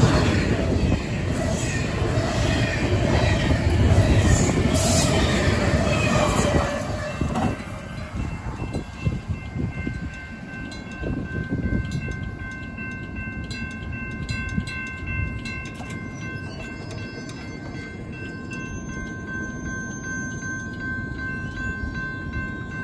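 Tail end of a Union Pacific double-stack intermodal train clattering loudly past over the grade crossing, then dying away about seven seconds in. The crossing's bells keep ringing after it: the steady tone of the electronic bell and the rapid strikes of the mechanical bell.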